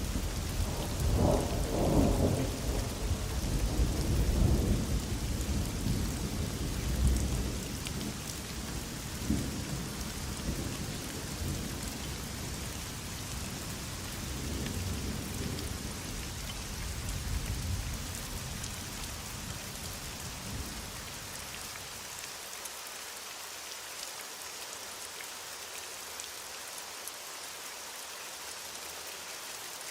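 Heavy rain falling steadily, with a long roll of distant thunder that breaks right at the start, is loudest over the first few seconds, and rumbles on in swells before dying away about two-thirds of the way through.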